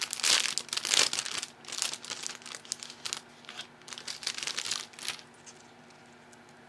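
Packaging crinkling and rustling in irregular bursts as it is handled, stopping after about five seconds.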